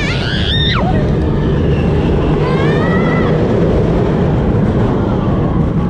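Big Thunder Mountain mine-train roller coaster running, a steady loud rumble throughout. Over it a rider cries out twice: once near the start in a call that drops sharply in pitch, and again about two and a half seconds in with a rising cry.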